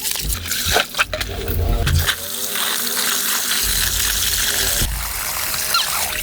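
Water splashing and pouring, a steady rush with scattered clicks and knocks.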